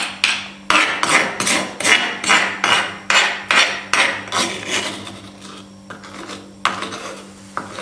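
Metal spoon scraping ground spice paste out of a stone mortar (cobek), a run of quick rasping strokes about three a second. The strokes thin out after about five seconds, with a couple more scrapes near the end.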